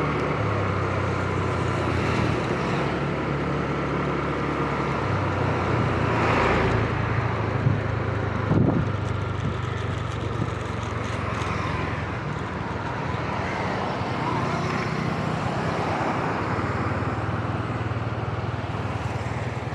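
Motor scooter engine running steadily while riding along a road, its low hum shifting a little about five and twelve seconds in, with road traffic around it.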